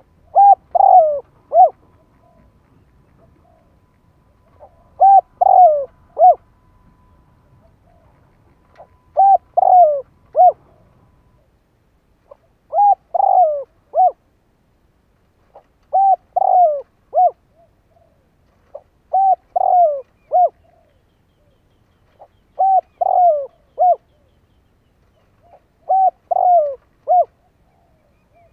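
Spotted dove cooing: eight phrases of three or four short notes each, repeated about every three and a half seconds. This is the territorial coo of a decoy dove used to lure wild spotted doves.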